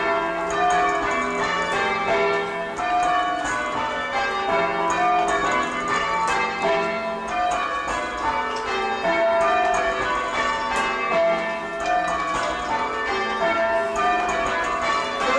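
Church tower bells in change ringing, a steady run of strikes at several pitches, heard from the ringing chamber below the bells. The sixth bell is silent because its clapper has fallen out, leaving a gap in each round.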